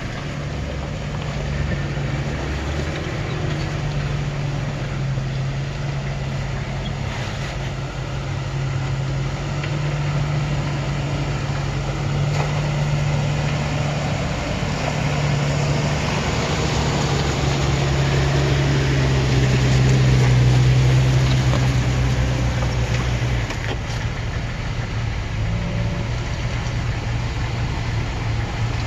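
Jeep engines running at low revs as lifted 4x4s crawl through deep ruts. The engine note swells and grows loudest a little past the middle as the Cherokee XJ comes closest, then drops back as a Wrangler moves up behind it.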